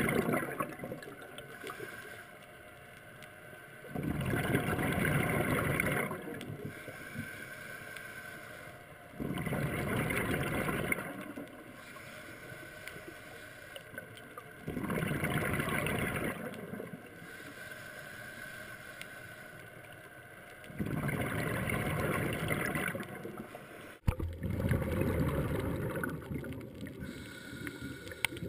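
A scuba diver breathing through a regulator underwater. A loud surge of exhaled bubbles comes about every five to six seconds, with quieter stretches between. A sharp click comes near the end, then steadier bubbling.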